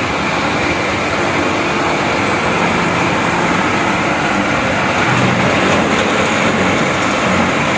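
BS-D70 mini copper cable wire granulator running on test, giving a steady, loud mechanical noise with a constant high hiss.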